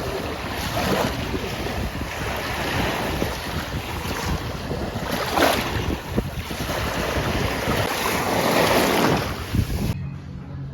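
Sea waves washing in and surging about three times, with wind rumbling on the microphone.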